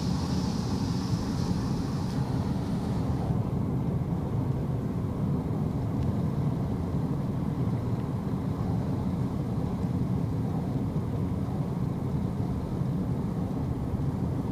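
Steady low road and engine rumble heard inside a moving car's cabin, with a light hiss that fades away about three seconds in.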